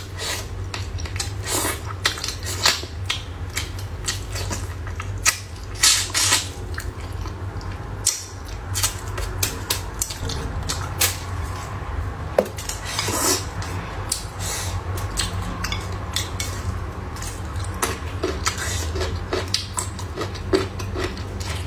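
Eating utensils clinking and clicking irregularly against bowls and dishes during a meal, over a steady low hum.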